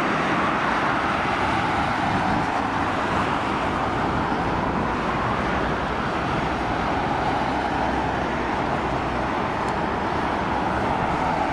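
Steady jet engine noise from an Airbus A320-214's CFM56 turbofans as the airliner touches down and rolls out along the runway.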